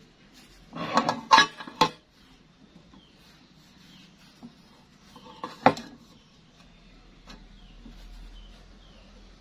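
Metal clatter as a zinc-plated gate wheel and its steel bracket are handled against a galvanized square steel tube: a quick run of several knocks about a second in, then one sharp knock a little past the halfway point.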